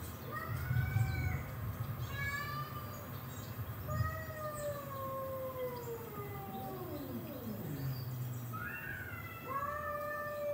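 Two cats yowling at each other in a standoff before a fight, played through a TV's speakers. Long wavering wails rise and fall, often overlapping, with one long wail sliding down in pitch near the middle.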